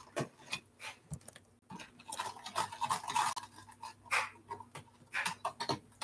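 Sugar water being stirred in a glass bowl: a utensil clicking and tapping lightly and irregularly against the glass.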